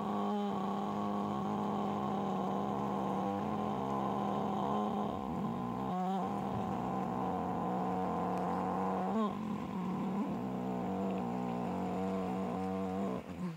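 A person toning: one long, steady, low hummed note with rich overtones, held without a change of pitch apart from small wavers, then cut off suddenly near the end.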